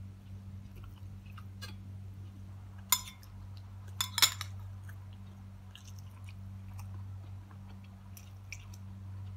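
Close-up eating sounds: chewing with small mouth clicks. Two sharp clinks, about three and four seconds in, the second a quick double and the loudest, fit a metal spoon striking a glass bowl as food is scooped. A steady low hum runs underneath.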